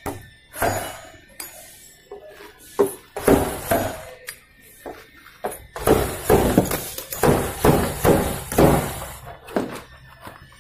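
A welding dent puller with a slide hammer working a dented steel car body panel: a quick series of sharp metallic clacks and knocks, coming thickest in the second half.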